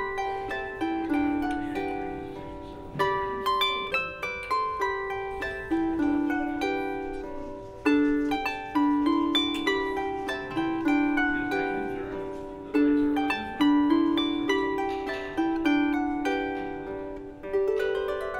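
Background harp music: a melody of plucked notes, each ringing and fading.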